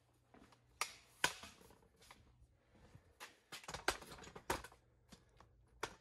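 Scattered, irregular light clicks, taps and rustles of someone moving about and handling things, over a faint low hum.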